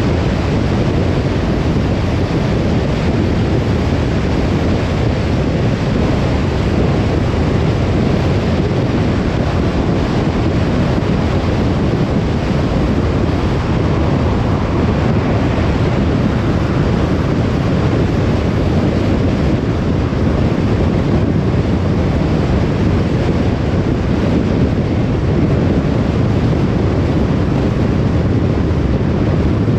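Steady road noise of a car driving: a low, even rumble of tyres and engine with no changes.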